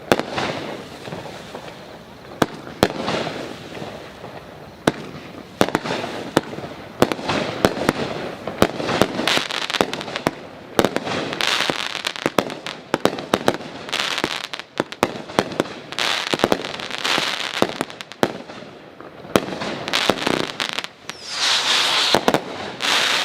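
500 gram consumer firework cake firing through its shots: a long run of sharp reports, some in quick clusters, with recurring stretches of hiss between them.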